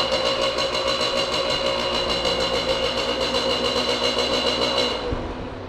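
Gilera RCR 50cc two-stroke single, derestricted on its stock exhaust, idling steadily while still cold. Near the end the engine sound dies away.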